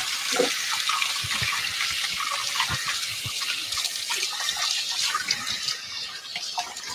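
Kitchen tap running into a sink while dough is washed off hands, a steady rush of water with a few small knocks. The water is shut off near the end.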